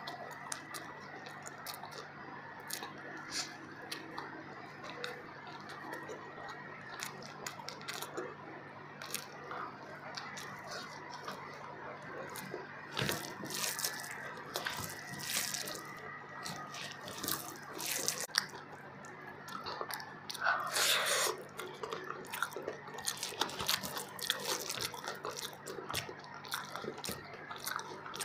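Close-up eating sounds of biryani rice eaten by hand: chewing, wet mouth smacks and many short clicks. A faint steady hum runs underneath, and there is one longer, louder noise about two-thirds of the way through.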